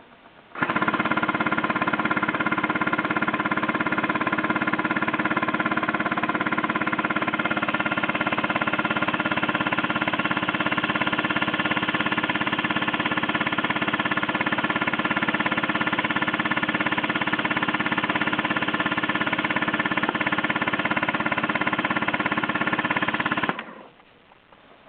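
Homemade airsoft M134-style minigun running in one long continuous burst: a steady motor whine over a dense, fast mechanical rattle. It starts abruptly about half a second in and cuts off suddenly near the end.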